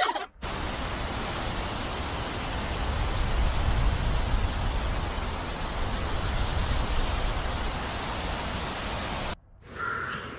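Steady rushing noise with a low rumble, swelling a little midway and cutting off abruptly near the end, followed by a brief short sound.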